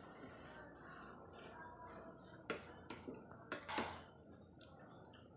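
Metal spoon clinking and scraping against a ceramic bowl while scooping rice porridge, with four or five sharp clinks in quick succession around the middle.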